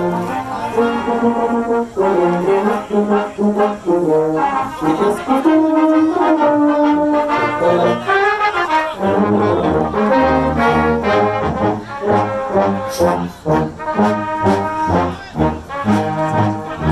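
Marching band brass section playing a tune, trumpets and other horns over short rhythmic low brass notes that grow stronger about halfway through.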